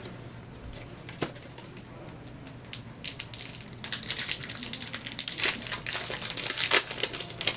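Plastic-foil trading card booster pack wrapper crinkling as it is handled and opened: a lone click about a second in, then from about three seconds a dense run of sharp crackles.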